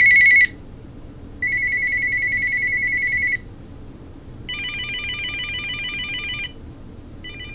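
Uniden EXAI7980 900 MHz cordless phone playing its electronic ringtones one after another: fast trilling ring bursts of about two seconds each, with short gaps between them. The first bursts warble on one high tone; from about halfway on the pattern changes to a mix of pitches, and each burst is quieter than the last.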